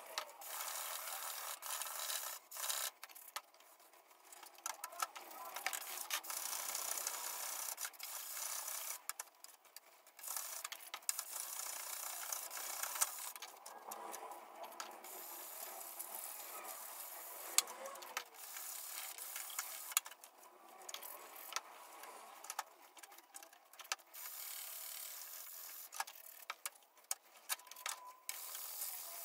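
Hand rubbing and wiping on a wet carbon-fiber fender panel with a cloth and sanding pad, in stop-start strokes with scattered small clicks and knocks.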